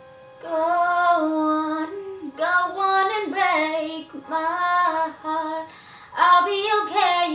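A teenage girl singing a pop ballad vocal line: several held phrases that bend in pitch, starting about half a second in.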